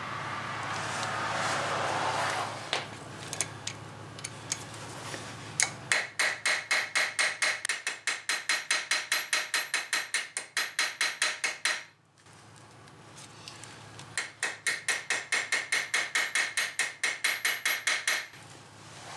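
Small hammer tapping quickly and lightly on metal at a car's front brake rotor and hub, about five ringing taps a second, in two long runs. It is seating a part until the taps sound solid. Before the taps there are a few seconds of quieter handling noise.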